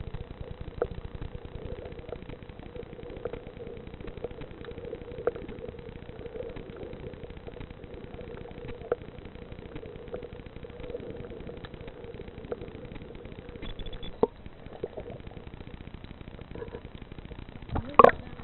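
Muffled underwater ambience heard through a submerged camera: a steady low rumble and faint hum, with scattered soft clicks and a loud knock near the end.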